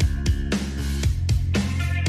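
Background music with guitar, bass and drums keeping a steady beat of about four hits a second.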